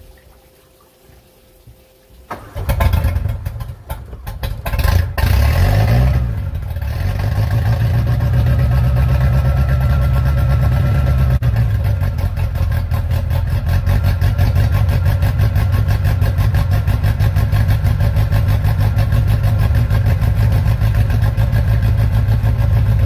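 Sterndrive boat engine cranking and catching about two and a half seconds in. It revs up and down for a few seconds, then settles into a steady idle. It is being run out of the water, with its drive sitting in a tub of pumped water, as the first step of winterizing.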